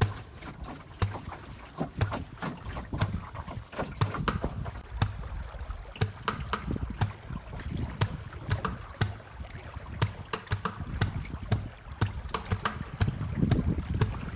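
Water slapping and lapping against the wooden hull of a small Melonseed sailing skiff under way, in many quick, irregular slaps, with wind noise on the microphone underneath.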